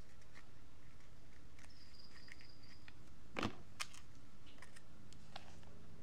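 Hands handling paper pieces, ribbon and a hot glue gun on a tabletop: small scattered clicks and taps, with one louder sharp knock a little past halfway, over a steady low hum.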